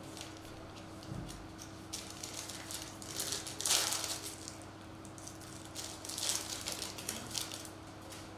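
Foil wrapper of a Prizm football card pack crinkling as it is handled and torn open, the loudest rip about three and a half seconds in, with more crinkling a couple of seconds later as the cards come out.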